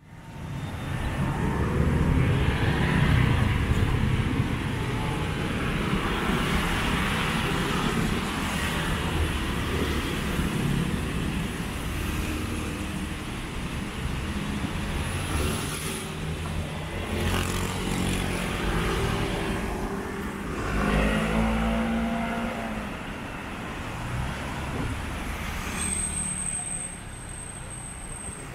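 Busy city road traffic heard from among it: motor scooter and car engines running and tyre noise on a wet road, continuous throughout.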